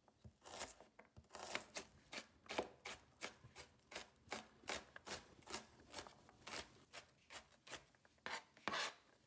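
Chef's knife slicing and then finely chopping an onion on a cutting board: a steady run of light knife strikes, about two to three a second.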